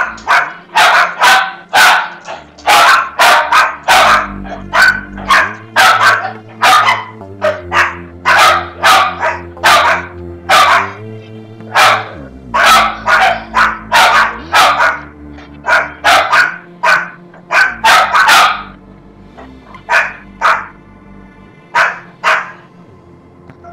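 A dog barking over and over, in quick runs of two or three barks a second with short breaks, on top of slow, steady drone music whose low chords shift every few seconds.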